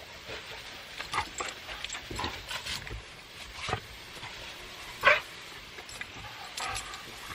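A dog whimpering in a few short separate bursts, the loudest about five seconds in.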